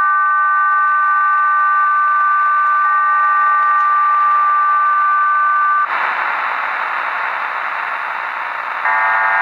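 HM01 numbers station received on shortwave: a steady two-tone signal holds for about six seconds, then cuts off to leave shortwave static hiss. Near the end a multi-tone digital data signal starts.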